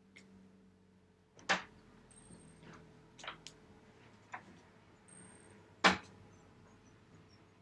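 A few scattered sharp knocks and clicks over a faint steady hum; the two loudest come about a second and a half in and near six seconds.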